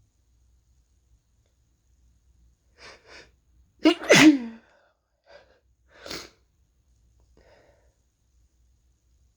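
A person sick with what may be a cold sneezing: two short, quick in-breaths about three seconds in, then one loud voiced sneeze just before the four-second mark. A shorter breathy burst follows about two seconds later, with faint breaths around it.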